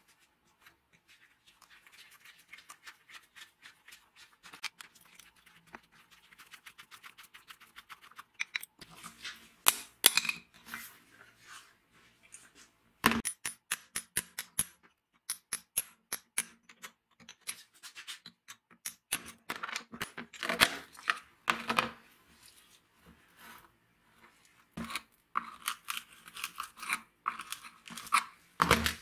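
Hand tools working on a rusty angle grinder's metal parts: screwdriver clicks, scraping and small knocks as its screws are undone and the armature bearing is worked off in a vise. The noises come in irregular bouts, louder in the second half.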